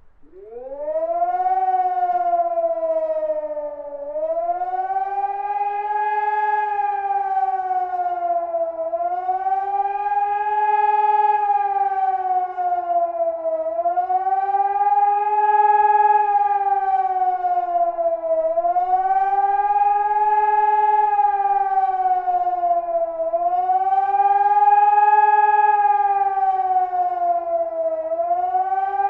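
Civil defence siren starting up and winding up to full pitch, then sounding a rising and falling howl about every five seconds. This is the German 'Warnung der Bevölkerung' public warning signal, sounded as a test.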